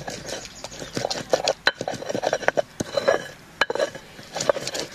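A hand-held grinding stone (lohoro) being rubbed back and forth over a flat stone slab (silauto), crushing a wet tomato chutney paste: irregular stone-on-stone scraping with sharp clicks and knocks.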